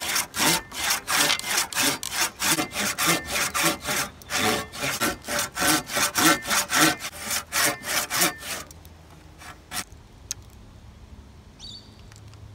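Hand saw cutting through wood in quick, even back-and-forth strokes, about three a second, stopping about eight and a half seconds in. A few light knocks follow.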